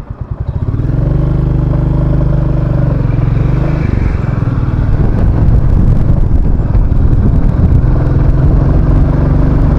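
Royal Enfield Classic 350 single-cylinder engine thumping slowly at first, then pulling away and running steadily. Its note changes and turns rougher about four seconds in.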